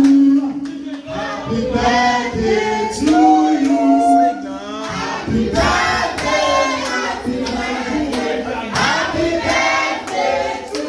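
A group of voices singing together, with music.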